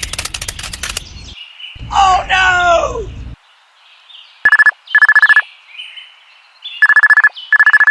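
A telephone-style ringing tone: four short, loud bursts of one steady pitch, in two pairs a couple of seconds apart. It comes after a run of rapid clicks at the start and a brief voice-like sound.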